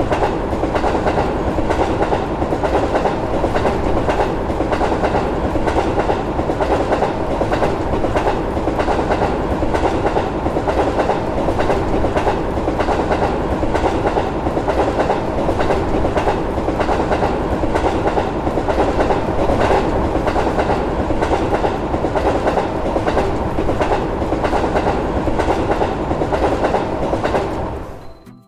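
A train passing, its wheels clacking over the rail joints in a fast, steady rhythm. The sound stays even throughout and cuts off near the end.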